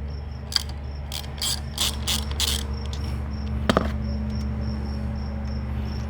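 A hand tap being backed out of a freshly cut 3/8-16 thread in a tractor's engine-mount hole: a click, then a quick run of short scraping, ratcheting strokes, and a single clack a little later. Crickets chirp steadily in the background.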